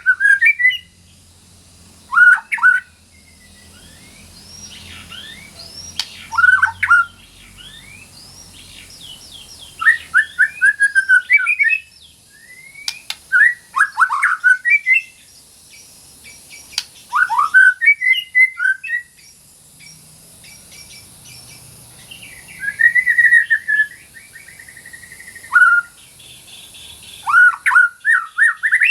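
White-rumped shama (murai batu) singing: short bursts of fast, sweeping whistled notes every few seconds, with brief pauses between phrases.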